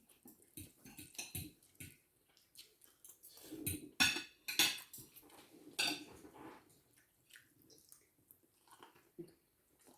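Cutlery clinking and scraping against plates and bowls during a meal, with some chewing. The loudest clinks come about four to six seconds in.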